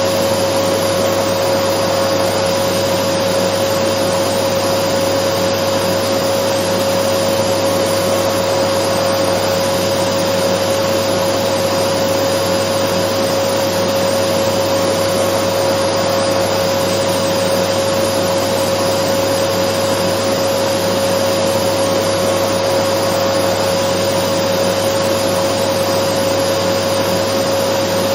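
Dyson vacuum cleaner running steadily, used as white noise. Its even rush of air is topped by a constant mid-pitched whine that never changes in pitch or loudness.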